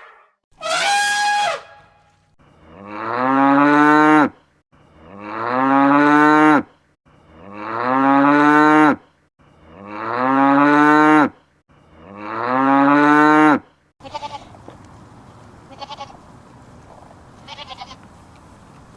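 Cow mooing five times in a row, each a long low moo of about two seconds that rises at the start and then holds, after a short call at the very start. Fainter short animal sounds follow near the end.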